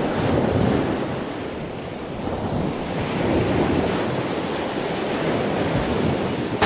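Ocean surf: a steady rush of waves washing in, swelling up twice and easing back.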